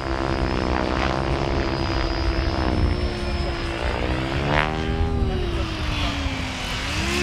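Mikado Logo 700 electric RC helicopters flying 3D aerobatics overhead. The buzz of the rotors and motors rises and falls in pitch as the blades are loaded and unloaded through the manoeuvres.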